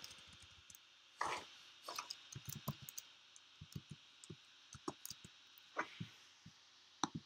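Computer keyboard typing: a run of faint, irregular key clicks as a file name is deleted and retyped.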